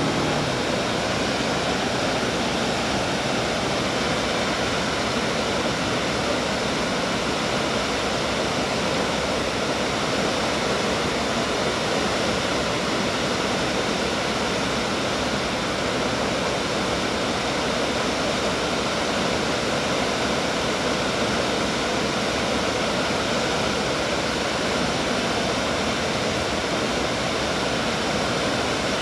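Water pouring over a wide, low dam into a rocky river, a steady, even rush that never changes.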